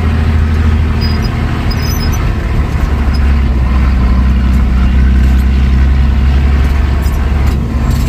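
Old Scania-Vabis truck's diesel engine running with a steady, deep rumble.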